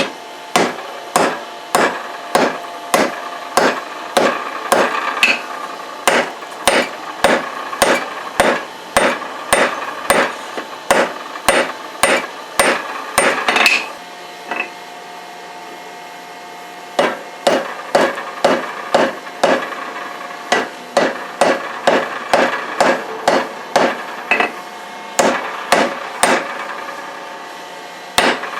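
Blacksmith's hand hammer striking hot leaf-spring steel on an anvil, about two blows a second, each blow leaving a ringing tone. The hammering stops for about three seconds midway, then starts again at the same pace.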